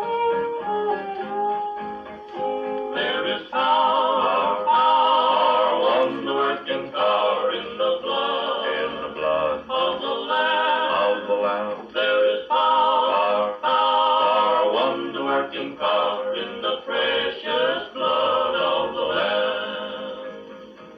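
1940s country gospel record playing through a Wurlitzer tube-amp jukebox: a plucked guitar introduction, then about three seconds in the full ensemble comes in with a wavering, vibrato melody. The high end is cut off, as on an old record.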